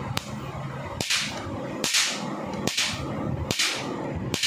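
Ujwala solar fence energizer's high-voltage pulses sparking across an air gap: a sharp snap a little more than once a second, six in all, some with a brief crackling tail.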